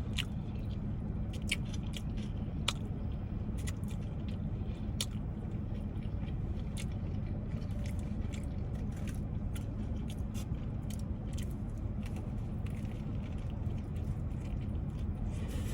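Close-up chewing of a grinder sandwich: scattered wet mouth clicks and soft crunches, over a steady low hum.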